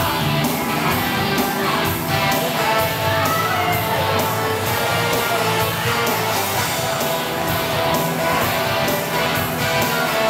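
Upbeat rock-style show music with electric guitar and a steady beat, played over a stage sound system.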